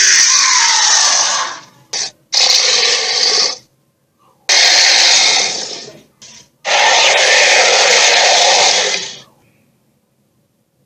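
Cartoon Torvosaurus 'sharptooth' dinosaur roars: four harsh, raspy roars, each one to two and a half seconds long, the first sliding down in pitch.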